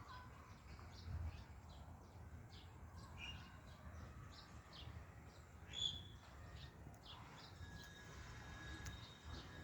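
Birds chirping faintly and repeatedly, with one louder chirp about six seconds in, over a low rumble.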